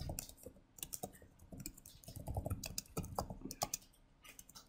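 Computer keyboard typing: irregular runs of keystrokes as a line of code is entered, thinning out near the end.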